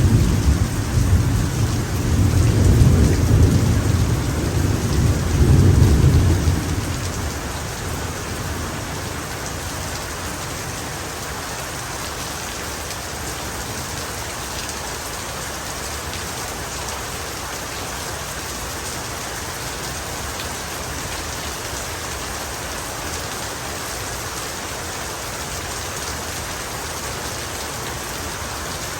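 Heavy rain falling steadily, with a low rolling thunder rumble that dies away about six seconds in.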